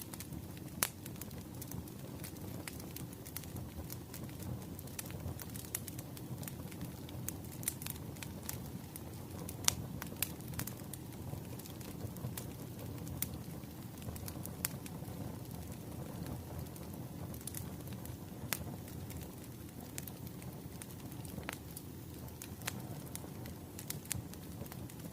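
Wood fire burning: a steady low rumble of flames with scattered sharp crackles and pops from the logs.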